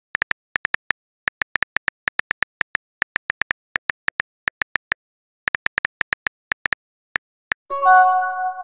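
Texting app's keyboard-typing sound effect: quick, short high-pitched ticks, one per letter, in irregular runs with brief pauses as a message is typed. Near the end a louder pitched pop chime sounds as the message is sent.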